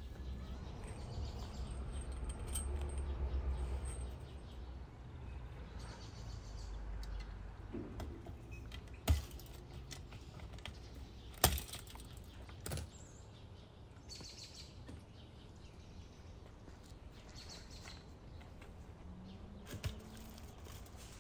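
Birds chirping outdoors over a low rumble that is strongest in the first few seconds, with a few sharp clicks around the middle.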